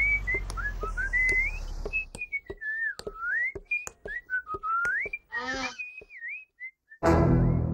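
A cartoon cat whistling a wandering, jaunty tune as he strolls, with light footstep clicks at a walking pace. A short warbling vocal squeak comes about five seconds in, and loud music cuts in near the end.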